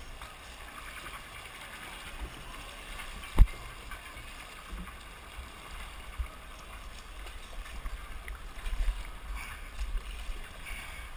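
Dragon boat paddles pulling through river water, with a steady wash and small splashes. One sharp knock comes about three and a half seconds in.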